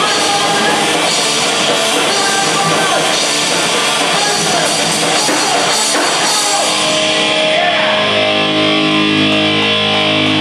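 Live punk/metal band playing loud: distorted electric guitar, bass, drums and shouted vocals. About seven seconds in the full band drops out, leaving steady held guitar and amplifier tones ringing as the song ends.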